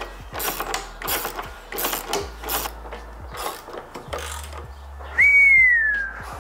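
A hand screwdriver turning screws into a metal miter saw fence, making short rasping strokes about three a second. About five seconds in, a man whistles one note that rises briefly, then slides down: a whistle of approval.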